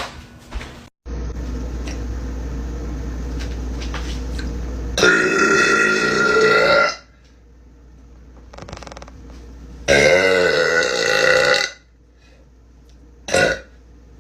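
A young woman burping loudly: two long, drawn-out belches of about two seconds each, then a short one near the end. A steady low hum runs under the first few seconds.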